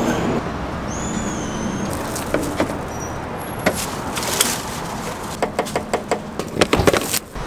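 Diesel running from a fuel-pump nozzle into the small tank of a portable diesel heater, a steady rush, with a quick run of sharp clicks near the end.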